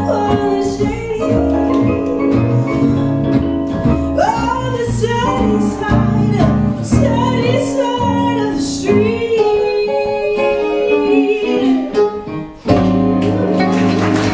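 A small swing jazz band playing live: a woman singing over violin, stage piano, acoustic guitar and upright double bass. The music drops out for a moment near the end and the band comes back in on a long held chord.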